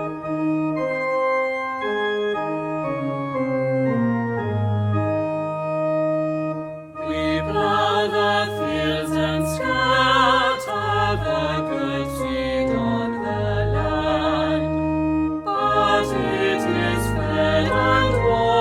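Church organ playing a hymn: sustained chords alone at first, then about seven seconds in a choir joins, singing with organ accompaniment, with a short breath between lines near the end.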